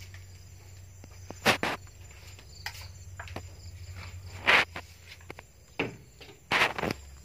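Irregular short scraping noises, about six of them, the loudest about four and a half and six and a half seconds in, over a faint steady low hum.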